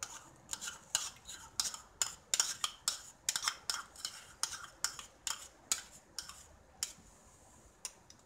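A spoon clinking and scraping against a small bowl as cream is scooped out into a pot of gravy. The taps come quickly and irregularly, several a second, and thin out near the end.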